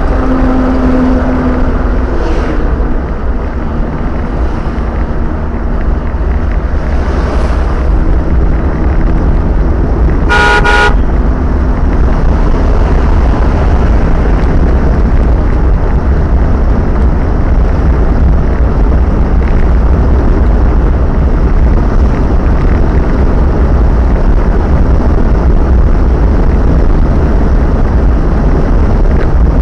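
Steady road and engine rumble inside a car cruising on a highway, with a brief vehicle horn honk about ten seconds in.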